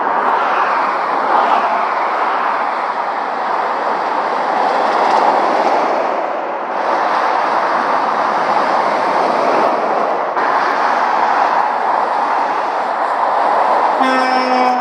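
Motorway traffic passing at speed: a continuous rush of tyre and engine noise that swells as lorries go by and dips briefly twice. A short horn blast sounds near the end.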